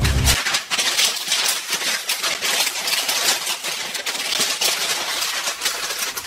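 Sheets of printer paper flipped and rustled loudly, a dense crackling rustle that keeps going with no break.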